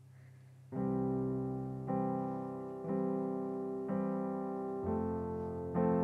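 Digital keyboard with a piano sound playing slow sustained chords, a new chord struck about once a second, starting about a second in after a faint low hum.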